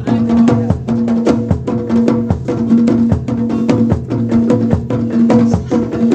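Traditional Javanese percussion music of the kind played for bantengan: a quick, steady beat of drum and wood-block-like strokes, over a pitched note that sounds again and again in short stretches.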